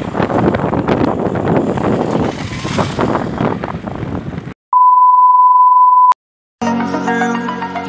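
Motor scooter riding over a rough road, with wind noise on the microphone, cut off suddenly about four and a half seconds in. Then a steady high test-tone beep of the kind played with TV colour bars, lasting about a second and a half. Electronic music starts near the end.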